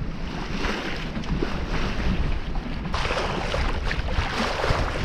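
Wind buffeting the microphone over the rush of sea water along a sailboat's hull while under way; the hiss grows stronger about three seconds in.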